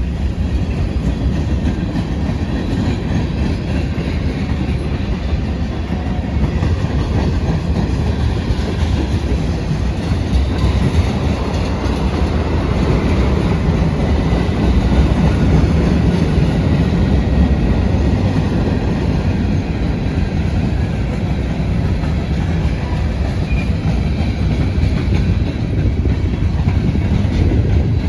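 Long CSX manifest freight train's cars rolling past slowly, a steady noise of steel wheels on the rails.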